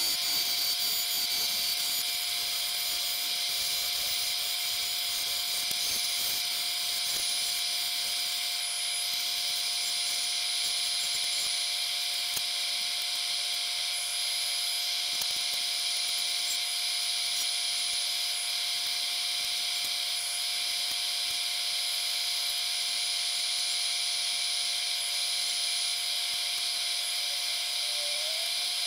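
Lathe spinning acrylic pen blanks while a turning tool cuts them round: a steady high hiss of shaving plastic over a constant motor whine.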